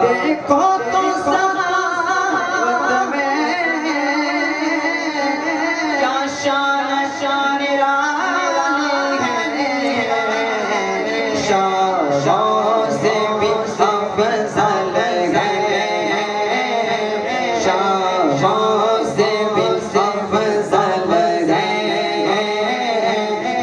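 A man singing an Urdu devotional naat solo into a microphone, a melodic line with long held notes.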